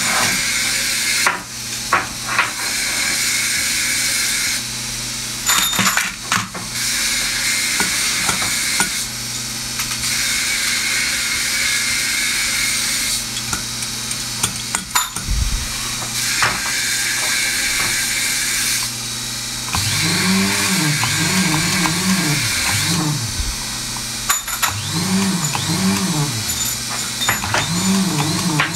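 Small electric bead-drilling machine running, its motor spinning a fine drill bit into wooden beads: a steady high-pitched whirr with a few brief knocks. In the last third a low tone rises and falls over and over.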